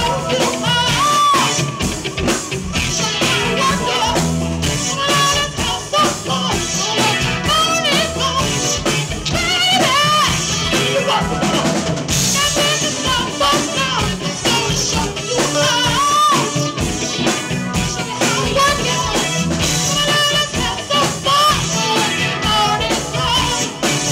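Live band music: a male lead singer singing over electric bass and a drum kit.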